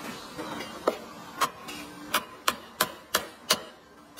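Knife chopping on a cutting board: about seven sharp strikes, at first spaced out, then coming evenly about three a second from about halfway in.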